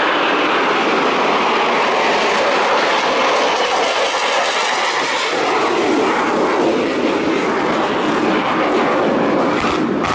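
Aircraft engines of a formation flypast led by an Airbus A400M turboprop transport with propeller trainers: a loud, steady engine noise.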